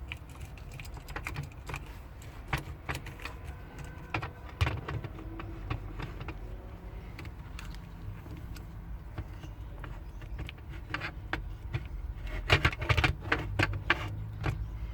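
Hands handling a keyboard circuit board and plastic computer case parts: scattered small clicks and rattles, with a run of louder clicks near the end, over a steady low hum.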